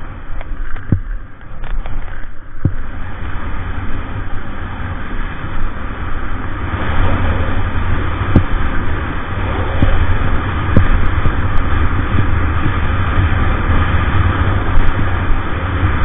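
Wind buffeting an action camera's microphone during a fast ski descent, a steady rumbling rush mixed with skis hissing over packed snow. It grows louder about six seconds in, with a few faint clicks.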